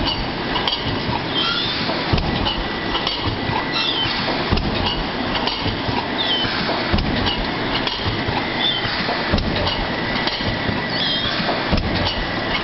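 Automatic plastic cup thermoforming machine running steadily, with a regular mechanical knock a little over once a second and short high squeaks repeating in time with it.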